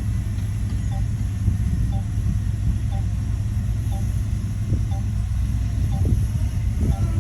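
Heavy diesel engine of earthmoving machinery running steadily with a deep rumble. A faint short tone repeats about once a second.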